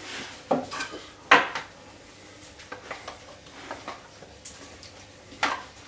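Metal palette knife clinking and scraping against a stainless-steel saucepan as the last of the vanilla cream is scraped out: a few sharp clinks, the loudest about a second in, with lighter scrapes between.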